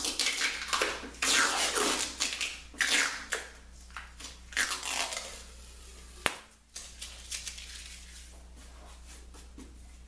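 Adhesive tape being pulled off a work surface: a run of ripping, rasping strokes over the first five seconds, then one sharp click about six seconds in.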